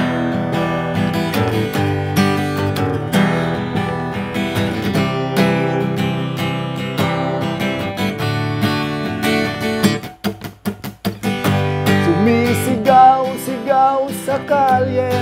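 Acoustic guitar strumming chords in a steady rhythm. About ten seconds in, the chords break into a second or so of short, choppy, damped strokes, then the full strumming resumes.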